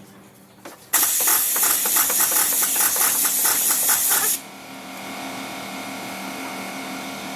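Air-powered tool running in a burst of about three and a half seconds: a loud hiss of air with a fast clatter, stopping abruptly. A steadier, quieter hum with a few held tones follows.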